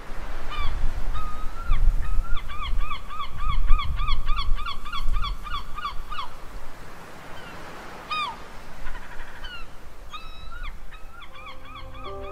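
Birds calling in quick runs of short, clear notes that fall in pitch, over a low rumble of the sea. Soft music comes in near the end.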